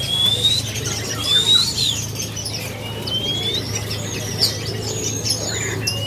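Caged songbirds singing: a few clear whistled notes that rise and then fall, over many short chirps from the other birds around.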